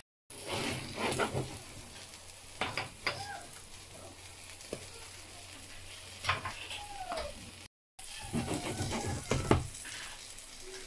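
Spanish potato omelette frying in olive oil in a nonstick pan: a steady sizzle, with a few short clicks and scrapes scattered through it. The sound cuts out briefly twice.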